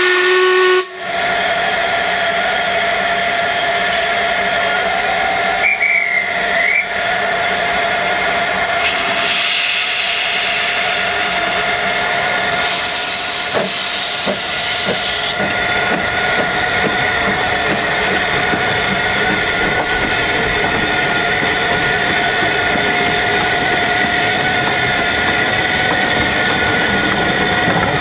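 Narrow-gauge Hunslet 2-4-0 steam locomotive giving a short whistle blast at the start, then hissing steam steadily, with a sharper, louder hiss for about two seconds about halfway through as it gets under way.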